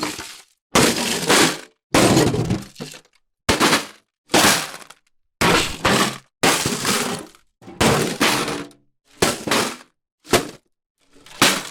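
Ice cubes clinking and rattling in an ice bucket: about a dozen short bursts, each starting sharply and dying away, with silence between them.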